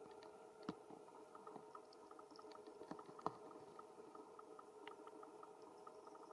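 Faint background: a steady hum with soft, regular ticks about four a second, broken by two sharp clicks, the louder one about three seconds in.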